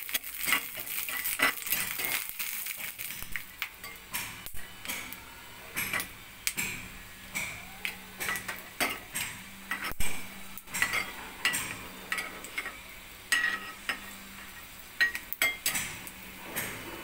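A metal spatula scrapes and clinks irregularly against a small metal kadai as peanuts are stirred and turned, with a faint sizzle of them frying in ghee underneath.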